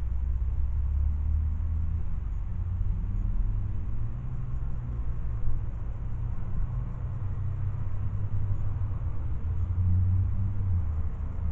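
A car's steady low rumble.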